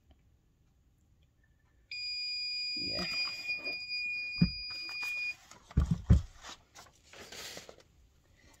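Heat press timer giving one long electronic beep, about three seconds, as the set pressing time runs out. The press is then lifted and set down on its base with a few knocks, followed by a brief rustle of the pressing sheet being taken off.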